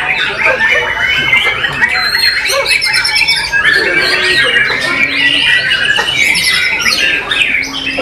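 White-rumped shamas singing loudly at once: a dense, overlapping stream of rapid whistles, trills and harsh chattering notes.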